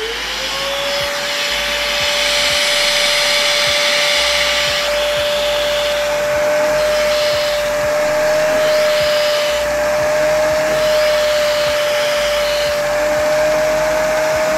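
Rug Doctor Portable Spot Cleaner spinning up and then running with a steady whine and a rush of suction air, as its hand tool works over a fabric seat cushion.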